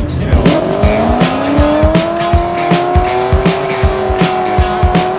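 Pontiac GTO's V8 doing a burnout: a pitched engine-and-tyre squeal climbs over the first couple of seconds and then holds steady as the rear tyres spin. Background music with a steady beat runs underneath.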